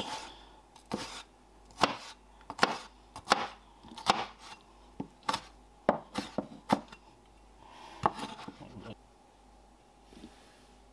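Cleaver chopping pickled gherkin slices on a wooden cutting board: sharp, uneven knocks of the blade on the wood, about one to two a second, stopping about nine seconds in.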